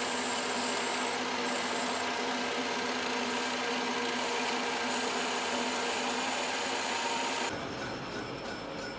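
Power tool working metal in a machine shop: a steady grinding hiss with a steady hum, cutting off abruptly about seven and a half seconds in to a quieter, different sound.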